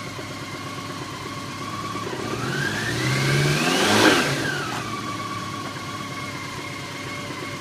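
A 2003 BMW K1200LT's inline four-cylinder engine idles, is revved once to about 3,000 rpm, and settles back to idle. The pitch rises smoothly for about two seconds, peaks about four seconds in, and drops back quickly.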